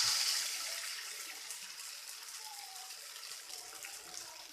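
Pancake batter sizzling on a hot chapati tawa greased with butter: a steady hiss that is loudest at first and dies down gradually.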